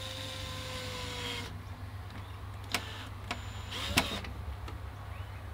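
Ryobi cordless drill driving a screw into a wooden coop panel: the motor whines steadily for about a second and a half and stops. A few sharp clicks follow, with a brief second burst of the drill about four seconds in that ends in the loudest click.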